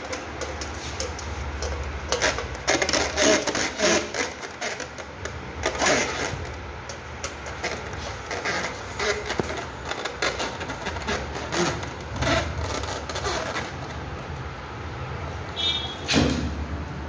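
Metal clicks and scrapes of a screwdriver turning the bolts that fix the blades to a ceiling fan's motor housing, over a steady low hum. A brief high squeak comes near the end.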